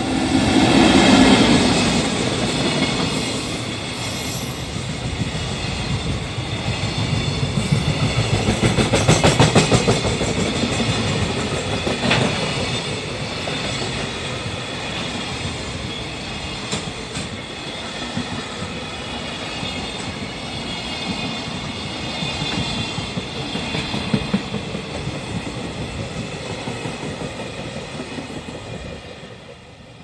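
EF65 electric locomotive passing close by, loudest about a second in. A long string of container wagons follows, its wheels clattering rhythmically over the rail joints, and the sound fades near the end as the train draws away.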